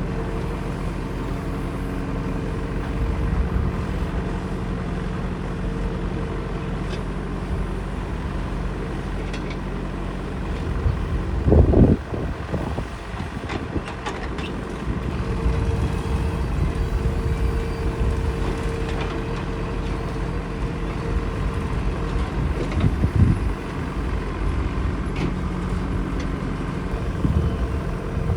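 Heavy diesel machinery engine running steadily, with brief loud surges about twelve seconds in, again a little past twenty seconds, and near the end.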